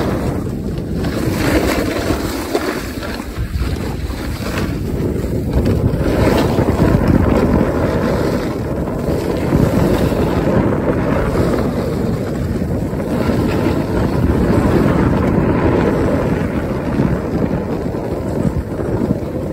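Wind rushing over the microphone from moving fast downhill, swelling and easing every few seconds, with the hiss and scrape of sliding over packed snow.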